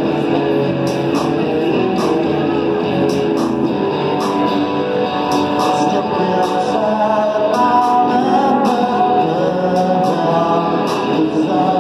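Live rock band playing: electric guitar and drums with regular cymbal strikes, and a man singing over them in the second half.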